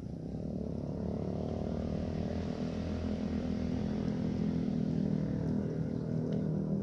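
A motor running with a steady low drone, slowly getting louder.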